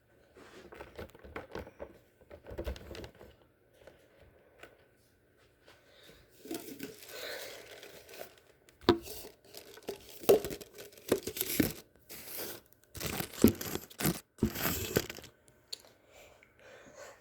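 Irregular rustling and crinkling handling noise, with several sharp clicks and knocks in the louder middle stretch.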